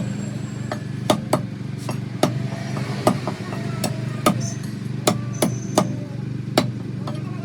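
Meat cleaver chopping through chicken on a chopping block: about a dozen sharp, irregularly spaced chops over a steady low hum.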